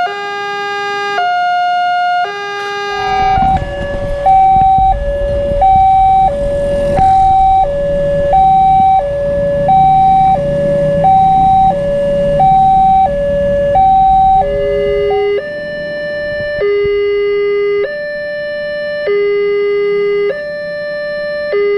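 Electronic warning alarms of railway level crossings, each a two-tone signal alternating steadily between a higher and a lower pitch. The alternation is slow at first, changes about three seconds in to a faster one over a low rumble, and about fifteen seconds in changes back to a slow alternation on a lower pair of tones.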